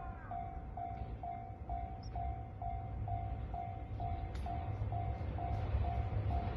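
Level-crossing warning bell ringing steadily, about two dings a second. Under it, the low rumble of an approaching train grows louder toward the end.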